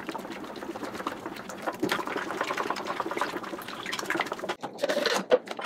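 Primer thinned with water being stirred in a mixing container: quick repeated scraping and knocking of the stirrer against the container, stopping near the end.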